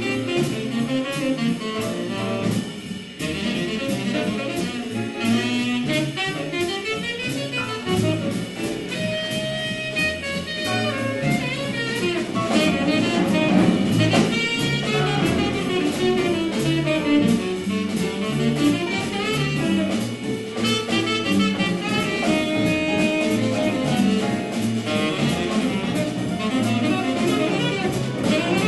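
Live small-group jazz: a saxophone plays a melodic line over plucked upright bass and drums keeping time on the cymbals.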